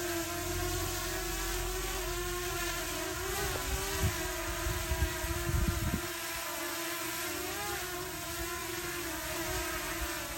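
Potensic Atom quadcopter's propellers whining in a steady hover, the pitch wavering slightly as the motors adjust to the wind gusts. Wind buffets the microphone with low rumbles for the first six seconds or so.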